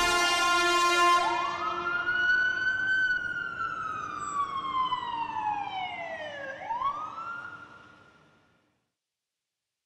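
A siren wailing as the song's last notes die away: one rise, a slow fall over about five seconds, then a quick rise again, fading out about eight seconds in.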